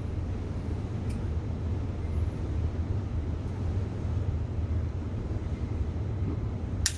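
Steady low background hum with no gunshot, and a single sharp click near the end.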